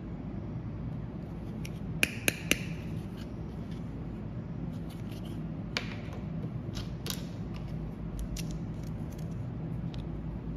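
Hard plastic toy doctor-set pieces clicking and tapping as they are handled and set down on a wooden table: three sharp clicks about two seconds in, then lighter scattered clicks, over a steady low hum.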